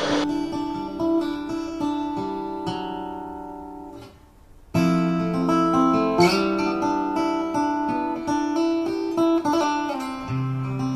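Acoustic guitar playing, single plucked notes mixed with strummed chords. The notes ring out and fade to almost nothing about four seconds in, and the playing starts again a moment later.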